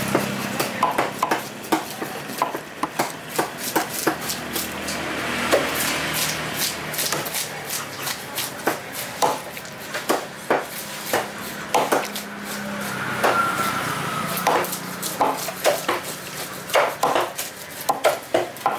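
A large cleaver chopping a red snapper into steaks on a wooden chopping block: sharp, irregular chops, at times several a second.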